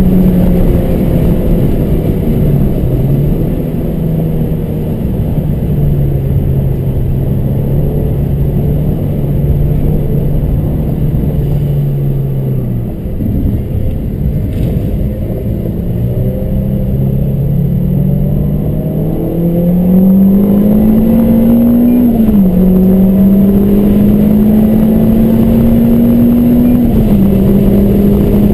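Car engine driven on a race circuit: the engine note falls and holds through the first half, sags lowest about halfway through, then climbs steadily under acceleration with two sudden drops in pitch near the end as gears are shifted up. A steady rushing noise runs under it throughout.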